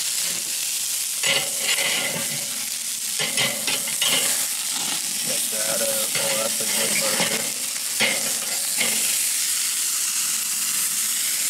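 Fatty beef burger patties sizzling steadily on a grate over hot charcoal as they are flipped, with a few short clicks and scrapes from turning them against the metal grate.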